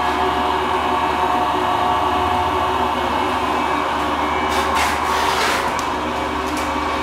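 Electric fish grinder running with a steady, many-toned motor hum, and a short burst of harsher grinding noise about four and a half seconds in as salmon carcasses are fed into it.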